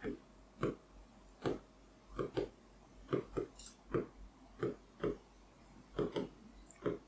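Pen strokes on the glass of an interactive display as words are written by hand: a dozen or so short, separate taps and scrapes with small gaps between them.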